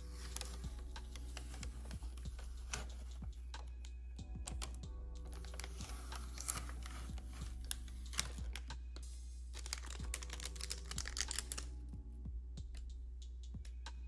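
Fingertips and nails tapping and clicking on an ASUS ROG Strix B550 motherboard, in several bursts of quick light clicks like typing, over background music and a steady low hum.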